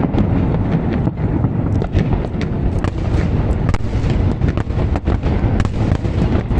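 Fireworks display: rapid, overlapping bangs over a continuous low rumble, with no pause.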